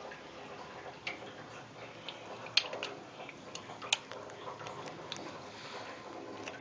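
Irregular small clicks and pops at the water surface as goldfish gulp floating pellets, with two sharper pops near the middle.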